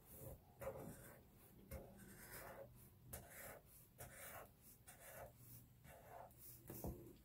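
Black marker scratching faintly on sketchbook paper in a run of short strokes, about two a second, as it draws one scalloped curl after another along the outline of a hairdo.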